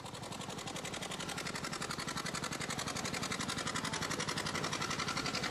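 Machinery on a fishing boat running with a fast, even pulsing rhythm. It fades up over the first second or two, then holds steady.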